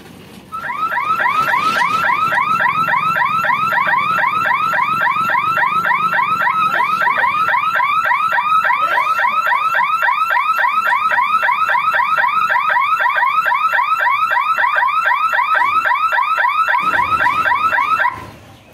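Level-crossing warning hooter on a lowering gate barrier, sounding a loud electronic warble of fast, repeated rising whoops that warns that a train is coming. It starts about half a second in and cuts off suddenly near the end.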